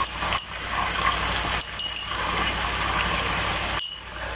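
Chicken pieces sizzling in hot oil in a karahi with ginger-garlic paste just added: a steady hiss with a few sharp pops. The hiss dips briefly near the end.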